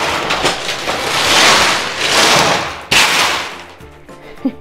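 A large pile of jelly beans being poured out: a dense rattling patter of small hard candies that swells and fades, with one sharp knock about three seconds in.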